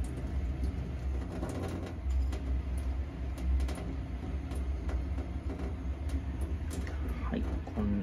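A thin stream of tap water runs into a stainless steel sink over a potted pothos and moss, with a few light handling clicks. A steady low rumble sits underneath.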